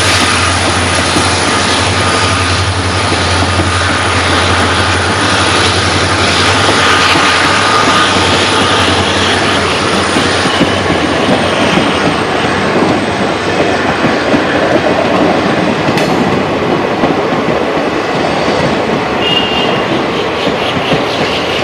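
Passenger train coaches rolling past, their wheels clattering rhythmically over the rail joints. A low steady hum underneath fades out about halfway through.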